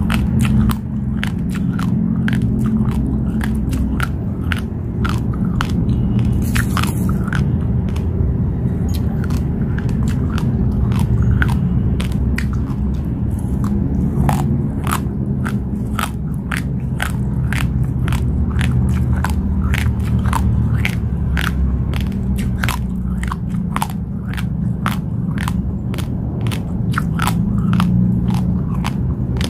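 Raw Daawat organic basmati rice being chewed: a dense, irregular run of sharp crunches and cracks as the dry grains break between the teeth, several a second, over a steady low rumble.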